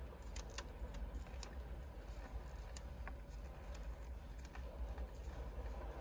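Scattered light crackles and clicks of electrical insulation tape being wrapped around a spliced wire, with the harness wires rustling under the fingers, over a low steady rumble.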